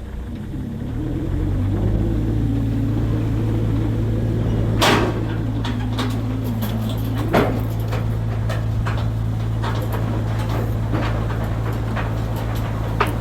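An engine running at a steady speed, growing louder over the first couple of seconds, with two sharp clanks about five and seven seconds in and lighter clicks and knocks after that.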